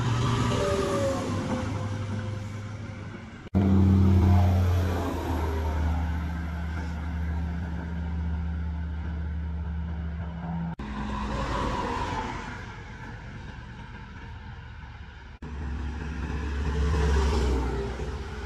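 Heavy diesel trucks driving past on a road, each with a steady, low engine note over tyre and road noise. The sound jumps abruptly three times as one short clip gives way to the next.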